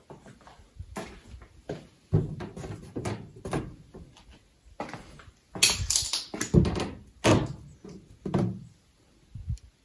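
Irregular knocks, bumps and scrapes, as of things being handled or knocked against, loudest from about halfway through to near the end.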